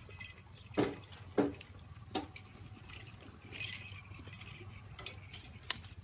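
Goats feeding on a heap of cut Napier grass: rustling leaves and a few sharp snaps as the stems are bitten and torn, the two loudest about a second in and half a second apart.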